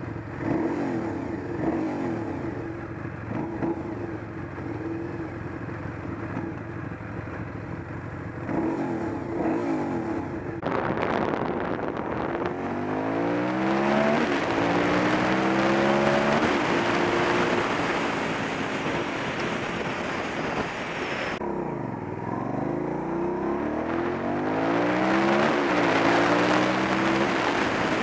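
Aprilia Shiver 750's V-twin engine. For about the first ten seconds it is revved up and down in quick throttle blips. The sound then changes abruptly to the bike accelerating, its pitch climbing steeply, against a rush of wind noise. Near the end, after another abrupt change, the revs drop once and climb again.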